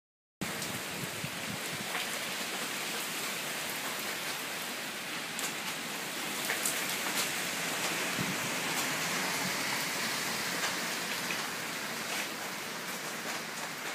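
Steady rain from an approaching typhoon, falling on surfaces, with scattered sharper drop hits.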